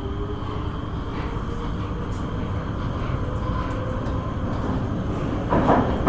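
Subway train running with a steady low rumble and a faint motor whine slowly rising in pitch as it gathers speed. Louder clatter of the wheels over the rails starts about five and a half seconds in.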